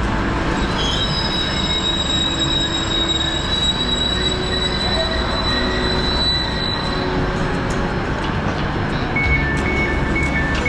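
Passenger train running at a station, with rumble and a steady high wheel-and-brake squeal through most of the clip. Near the end a repeating two-note beeping begins.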